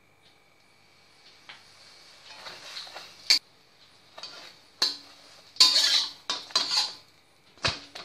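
Flat metal spatula scraping and clinking against a tawa as a thin roti fries in a little oil, over a faint sizzle. Quiet at first, then sharp clinks about three and five seconds in and near the end, with a run of scraping strokes between.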